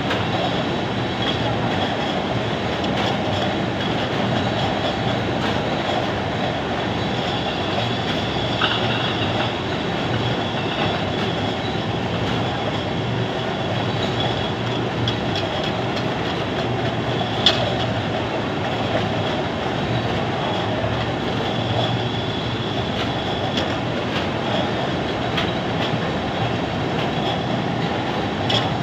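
Tin can canning line running: a steady mechanical clatter of conveyors carrying empty tin cans, with a faint high whine and a few sharp metal clinks, the loudest a little past halfway.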